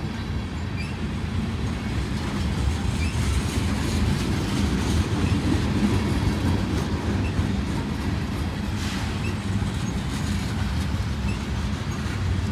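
Freight train of tank cars rolling past close by: a steady low rumble of wheels on rail, with faint scattered clicks.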